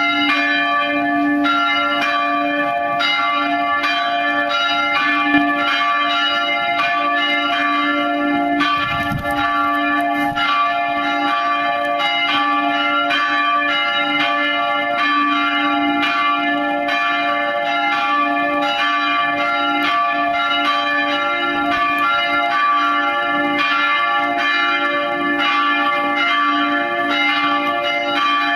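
Three swinging bronze church bells, cast by Van Bergen of Heiligerlee, ringing together in continuous overlapping strokes: the peal calling to Sunday mass.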